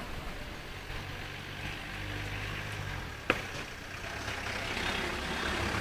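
Road traffic: a vehicle engine running steadily, one sharp click a little past three seconds in, then traffic noise swelling toward the end.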